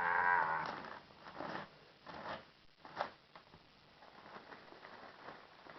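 A plastic courier mailer being torn open by hand: a short pitched sound in the first second, then a few brief ripping bursts, fading to faint handling after about three seconds.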